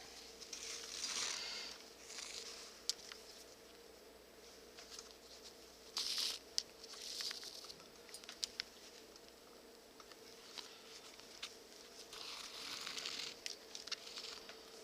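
Leather being hand stitched: thread drawn through the leather in a series of soft swishing pulls, with light clicks in between.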